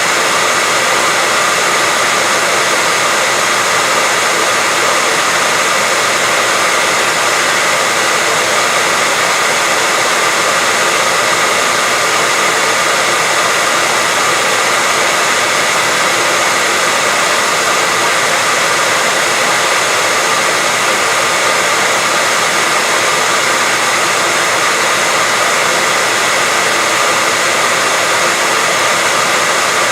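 Steady white noise: an even, unbroken hiss that stays the same throughout, with a faint steady tone near 2 kHz in it.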